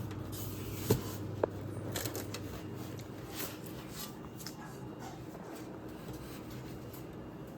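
Items being handled and shifted in a fridge's freezer: plastic packets rustling, with a few sharp clicks and knocks in the first two seconds, then softer rustling.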